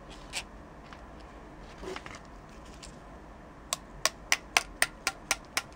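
Sharp, light clicks of small metal parts and tools being handled while a new pinion gear is fitted onto an airsoft motor's shaft: a couple of faint ones early, then a quick run of about four a second starting a little past the middle.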